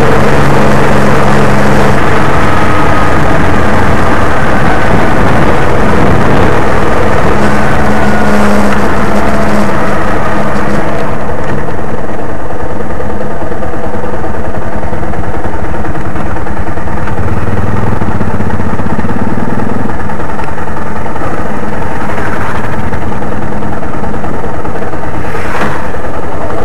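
Car's engine and road noise heard from inside the cabin while driving, recorded very loud. The engine's pitch shifts with speed, and the hiss above it drops away about eleven seconds in.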